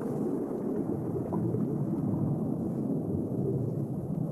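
Muffled underwater ambience: a steady low rumble with no sharp sounds in it.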